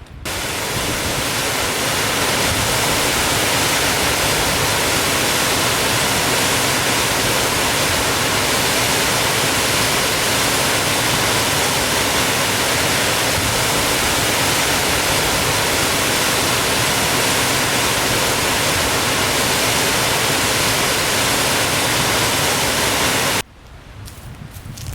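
Waterfall pouring: a loud, steady rush of falling water with no break in it. It starts abruptly and cuts off sharply near the end.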